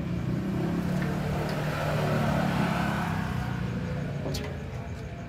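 A motor vehicle's engine passing by, its low hum swelling to a peak about two and a half seconds in and then fading.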